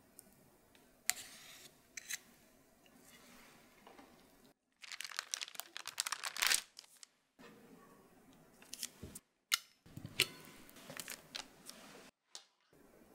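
Light sharp clicks and taps, with a few seconds of dense parchment-paper crinkling near the middle, as soft dalgona toffee on parchment paper is pressed flat and stamped with a metal shape cutter.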